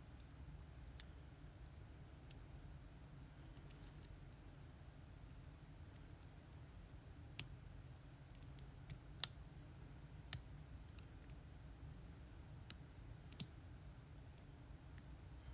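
Lock pick and tension wrench working the pins of a Lockwood 334B45 pin-tumbler lock, giving scattered sharp clicks as pins are lifted and set, the loudest about nine seconds in.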